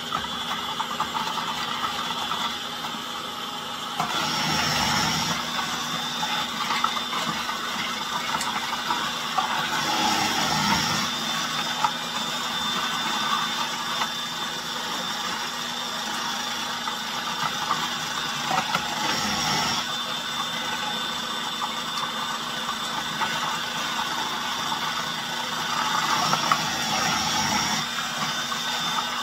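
KitchenAid food processor running steadily with its shredding disc, grating baby carrots fed down the feed tube. The noise grows louder four times as more carrots are pushed through.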